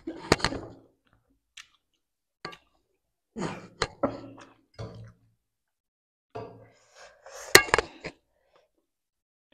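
Close-miked eating of instant noodles: chewing and slurping in four short bursts, with a few sharp clicks, the loudest a little before the end.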